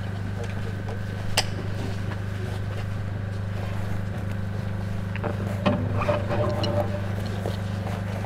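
Steady low electrical hum from an open sound system, with a few faint clicks and knocks, mostly around the middle.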